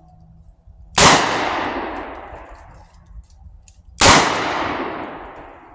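.357 Magnum revolver firing full-power 158-grain rounds: two shots about three seconds apart, about a second in and near four seconds in, each followed by a long echo fading away.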